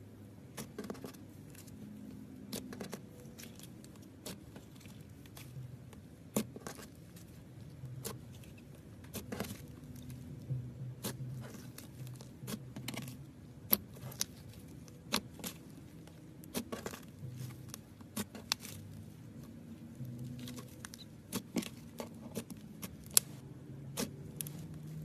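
Clear slime being squeezed and stretched by hand, giving irregular sharp clicks and pops over a soft squishing.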